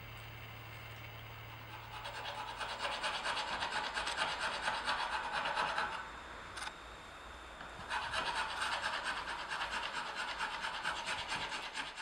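Hand file scraping at the edge of a wooden door in two spells of quick strokes, the first starting about two seconds in and the second about eight seconds in.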